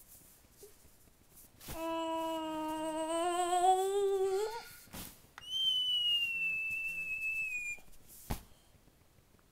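A person humming one held note for about three seconds, wavering slightly and rising in pitch at the end, then a single whistled note of about two seconds that sags a little in pitch. A few soft knocks fall between them.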